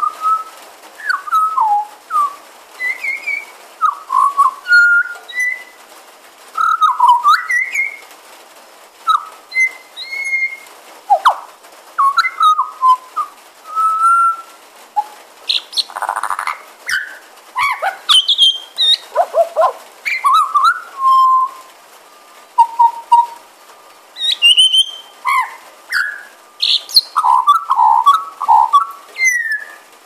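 Pied butcherbird singing: a long run of clear whistled notes, many sliding up or down in pitch, in short varied phrases with brief gaps between them.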